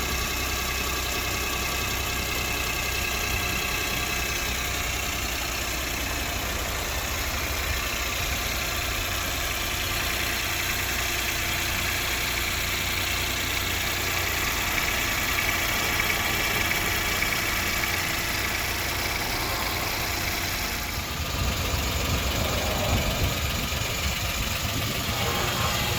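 Suzuki K6A three-cylinder engine idling steadily, growing a little louder about 21 seconds in.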